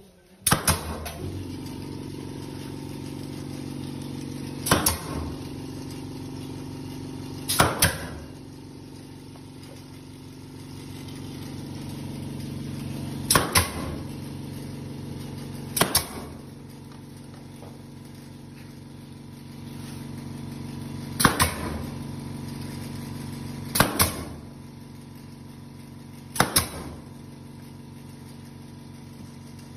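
Pneumatic nail gun firing nails through PU faux-stone panels into an OSB wall: sharp single shots every few seconds, some as quick doubles. A steady motor hum runs underneath.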